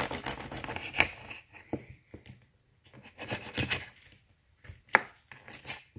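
Knife cutting a tablespoon of butter off a stick: scraping and rustling, with a sharp tap of the blade on the surface about a second in and another near the end.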